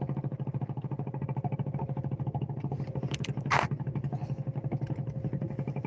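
A fishing boat's engine running steadily with a rapid, even thudding beat. One short sharp clack about three and a half seconds in.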